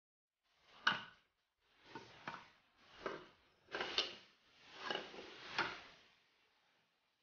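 Cut wooden boards knocking and scraping as they are handled and set down on a workbench: a sharper knock about a second in, then several softer knocks and short scrapes.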